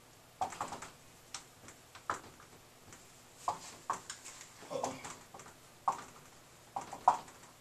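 Dry-erase marker writing on a whiteboard: a string of short, irregular squeaks and taps as each letter is written.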